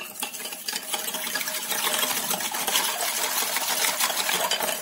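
A steel hand churner (mathni) is being spun back and forth in a glass bowl of thick curd, milk and ice cubes to churn lassi by hand. It makes a fast, dense clicking and splashing that grows louder over the first second or two, then runs steadily.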